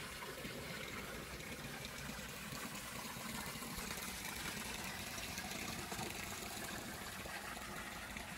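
Water running and trickling steadily into a backyard koi pond.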